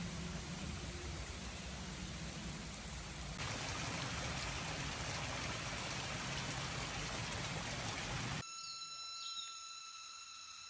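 Steady rush of flowing water, a stream or waterfall, growing louder at a cut about a third of the way in. It then cuts off suddenly to quiet forest, with a steady high whine and a short bird chirp near the end.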